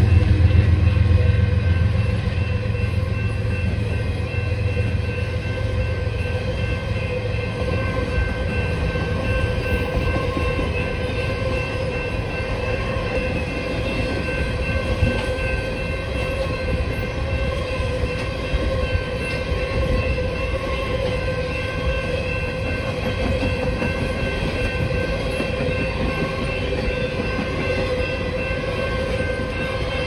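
Canadian Pacific coal train's hopper cars rolling past, a steady rumble of steel wheels on rail with thin steady high tones over it. A heavier low rumble eases off over the first two seconds.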